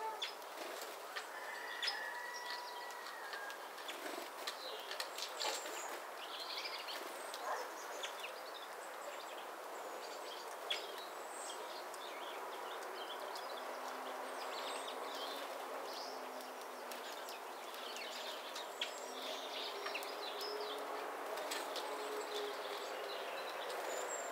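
Small songbirds chirping and calling in scattered short notes over a steady background of outdoor noise.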